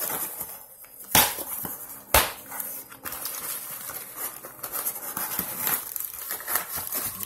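A box of Blu-ray discs being opened and its packaging handled: rustling and crinkling, with two sharp knocks about a second apart.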